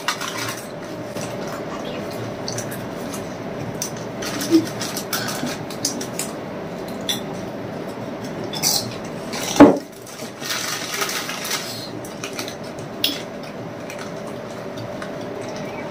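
Lay's potato chip packets crinkling and chips being crunched, with scattered clicks of glasses handled on a table over a faint steady hum; one louder knock about ten seconds in.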